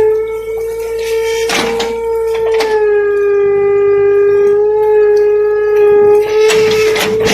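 Komatsu excavator running with a steady high-pitched whine that dips slightly in pitch around the middle, and several sharp knocks and clanks.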